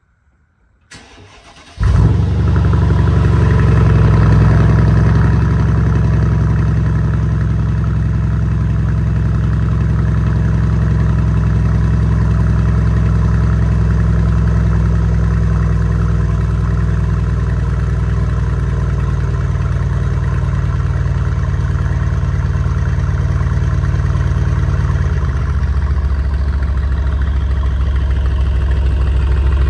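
Mercedes-Benz SL550 (R231) twin-turbo V8 cold-starting with its aftermarket exhaust cutout valves closed, as the owner believes. It cranks briefly, catches about two seconds in and runs at a loud, steady fast idle. Near the end the idle drops to a lower, deeper pitch.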